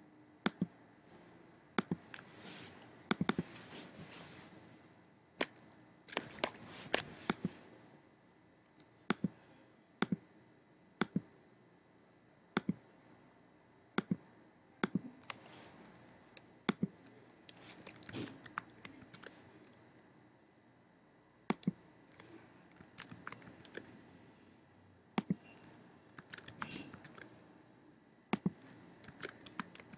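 Computer mouse clicks and keyboard typing: single sharp clicks about once a second, with several short bursts of rapid key presses, as a spreadsheet formula is entered.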